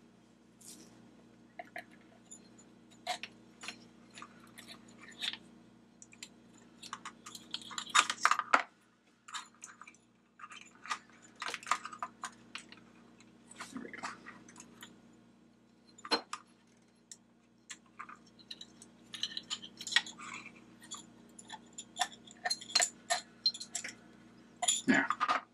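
Scattered small clicks, clinks and rattles of a Kobra UV flashlight's plastic and metal parts as they are handled and pushed together, with the head and LED switch block being fitted back into the body.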